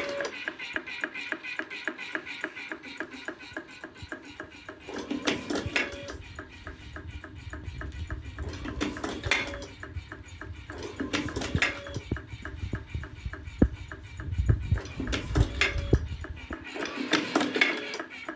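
Electric slim-cigarette rolling machine running: a fast, even ticking of its mechanism, with louder spells of light metallic clatter every few seconds as it works through each cycle.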